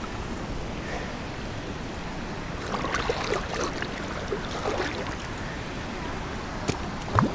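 Shallow water sloshing and small splashes as hands hold a channel catfish in the water to release it, over a steady wash of water noise. A short rising sound comes near the end.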